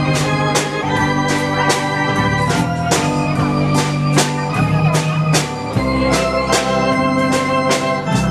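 Waltz music played on an electronic organ-style keyboard: held chords over a regular beat.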